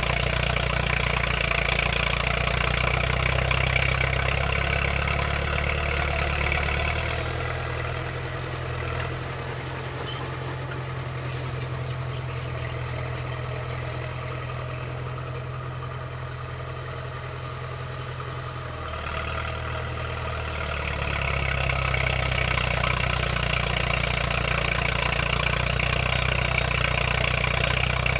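Diesel engine of a Cat D4C crawler bulldozer running as it pushes dirt. It turns quieter and its pitch shifts about a quarter of the way through, then comes back up to full strength about two-thirds of the way through.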